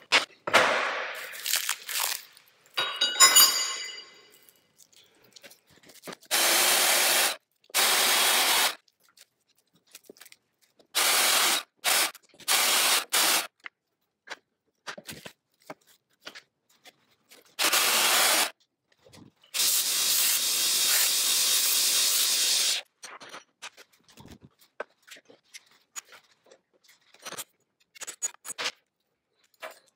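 Plastic wrap crinkling and tearing as it is peeled off a block of homemade micarta. Then several short runs of steady noise that start and stop abruptly, from a band saw cutting the micarta block, the last and longest lasting about three seconds.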